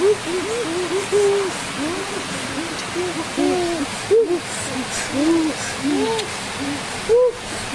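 A chorus of short hooting animal calls from several callers, each rising and falling in pitch, overlapping a few times a second over a steady hiss of running stream water.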